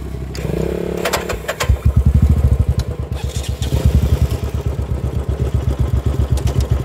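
Motorcycle engine starting close by after a few clicks, about one and a half seconds in, then running at idle with a fast, even pulsing beat.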